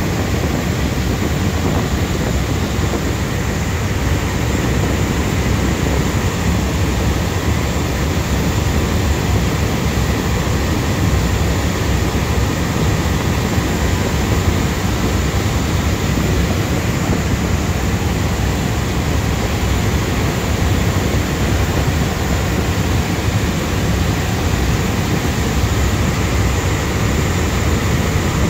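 Fast passenger ferry running at speed: a steady, loud drone of its engines mixed with water rushing past the hull and wake. The noise holds even throughout, with no breaks.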